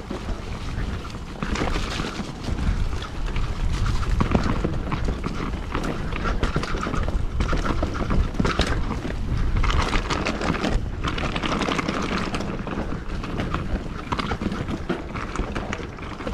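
Mountain bike riding down a rough trail: wind buffeting the microphone, with the tyres on dirt and the bike rattling and knocking over bumps.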